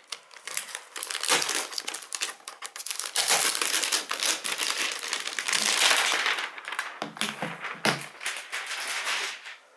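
Thin clear plastic protective sleeve crinkling and rustling in irregular bursts as a laptop is slid out of it, stopping just before the end.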